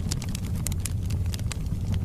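Wood logs burning in a fireplace: a steady low rumble of the flames with frequent, irregular sharp crackles and pops from the wood.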